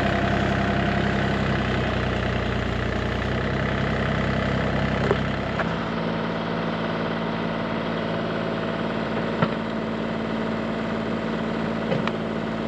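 Bobcat mini excavator's diesel engine running steadily while digging; about five and a half seconds in its deep rumble drops away and the engine note changes, with a couple of faint knocks.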